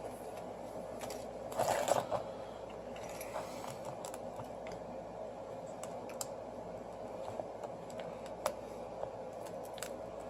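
Small repair tools clicking and scraping on the cracked front glass of a Samsung Galaxy S6 Active as the broken glass is pried and chipped away. Light scattered ticks over a steady background hiss, with a brief louder scrape about two seconds in.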